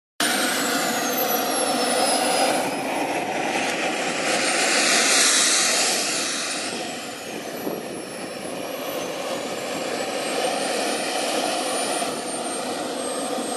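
Small model jet turbine running as a radio-controlled F-16 taxis. A steady rushing exhaust carries a high whine that glides up and down in pitch, and it swells louder for a couple of seconds around five seconds in.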